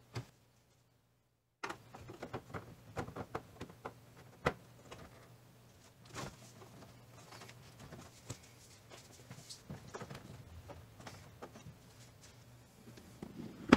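Hands rubbing and clicking plastic parts in a tight spot as the low-beam bulb area is closed up and the white plastic dust cover is twisted onto the back of the headlight housing. There are scattered small clicks and knocks, a sharper knock about four and a half seconds in and another right at the end.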